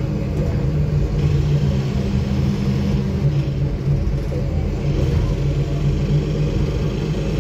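A 2009 Nova Bus city bus's engine and drivetrain running steadily as the bus drives along, a low rumble with a steady engine hum, heard inside the cabin near the front doors.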